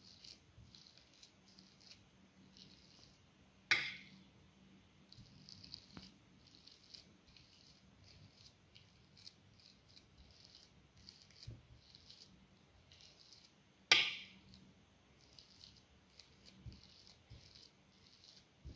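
Boiled potatoes being mashed on a plate with a hand utensil: soft, irregular scraping and squishing, with two sharp clinks of the utensil against the plate, one about four seconds in and one about fourteen seconds in.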